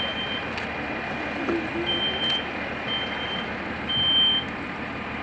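Smoke alarm inside the burning room still sounding its evacuation pattern: high-pitched half-second beeps in groups of three, about a second apart, with a longer pause between groups, over a steady background noise.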